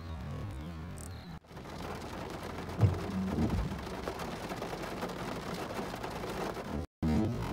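Rain pattering on a car's windshield and roof, starting about a second and a half in, with a sudden sharp clap of thunder and a short low rumble about three seconds in.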